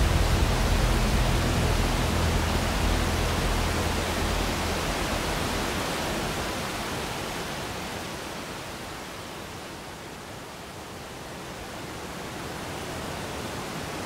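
Steady, even rush of a waterfall. It slowly fades to its quietest about two-thirds of the way through, then swells a little again.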